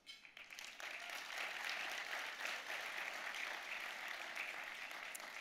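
Audience applauding, building over the first second and fading toward the end.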